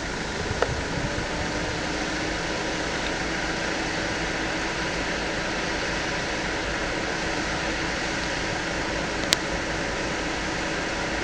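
Steady hum and hiss of a vehicle's engine idling, with a single sharp click about nine seconds in and a few clicks at the very end.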